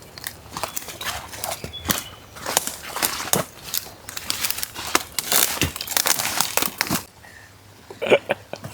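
Footsteps crunching quickly and irregularly through dry leaves on the forest floor, as people walk fast. The steps stop about seven seconds in.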